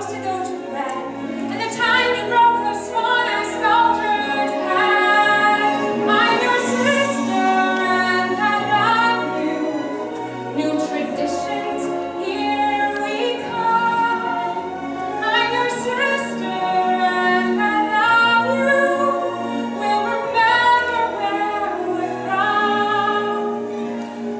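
Women's voices singing a musical-theatre song over an instrumental karaoke backing track.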